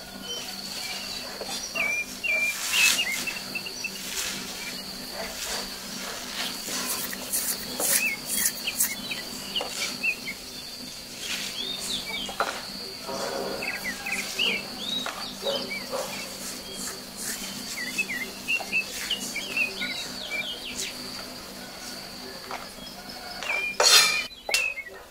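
Birds chirping over a steady high-pitched insect drone and a low steady hum, with scattered clicks and knocks. The loudest knocks come near the end.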